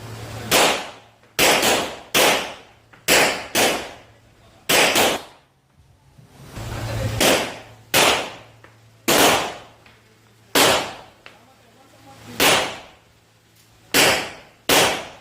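Pistol shots from a Rock Island Armory Tac Ultra FS HC (1911-style pistol) fired in an uneven string, about a dozen rounds. Some come in quick pairs and others are a second or two apart, and each report rings on briefly across the range.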